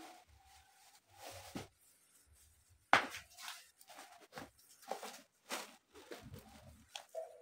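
Scattered light knocks and clatter of household handling in a small room, with one sharp knock about three seconds in.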